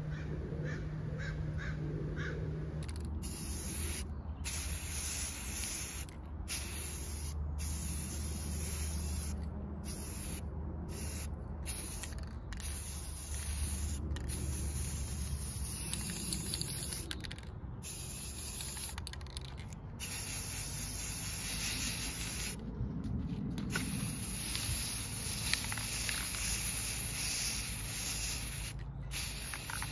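Aerosol spray paint can spraying: a loud hiss in long bursts, broken by a dozen or so short pauses where the nozzle is let off.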